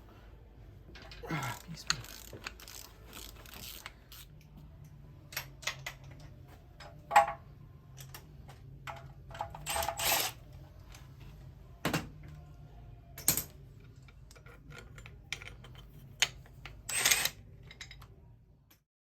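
Workshop sounds from an engine teardown: irregular sharp metal clicks and clinks of tools and engine parts being handled, over a low steady hum that starts a few seconds in.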